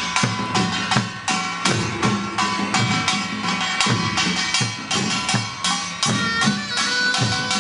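Korean pungmul percussion band playing for a farm work song: buk barrel drums and janggu hourglass drums beaten in a steady, quick rhythm of about two to three strokes a second, with ringing tones sustained above the beat.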